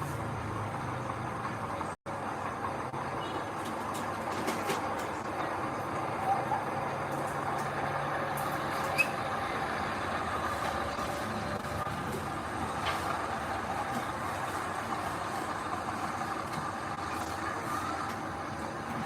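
Heavy diesel earthmoving machinery running steadily, a dense mechanical noise with a low hum underneath; the sound drops out for an instant about two seconds in.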